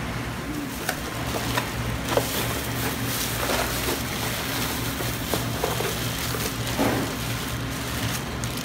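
Steady machinery hum, with short rustles and clicks of a plastic bag and crushed ice as gloved hands dig through a box packed with ice.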